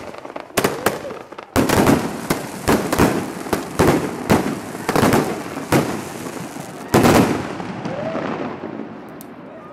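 Consumer aerial fireworks going off in quick succession: a string of sharp bangs, roughly two a second, over continuous crackling. A last loud bang comes about seven seconds in, and the crackle then fades away.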